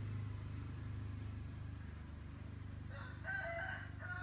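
A rooster crowing once, a call of about a second starting about three seconds in, over a steady low hum.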